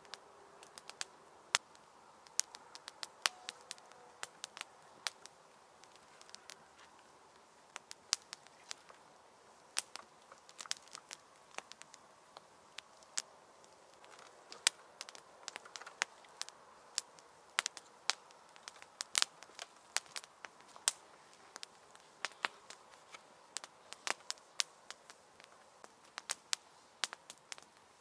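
Wood campfire crackling: irregular sharp snaps and pops, a few a second, over a faint steady hiss.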